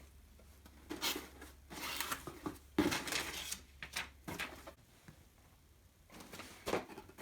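Packaging being handled: irregular rustling, scraping and light knocks of boxes and wrapping, loudest about three seconds in and again near the end.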